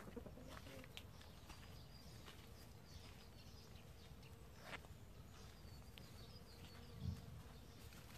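Near silence: faint outdoor ambience with a faint steady hum and a faint, high, wavering call in the middle. A few soft clicks and rustles, and one brief low thump about seven seconds in.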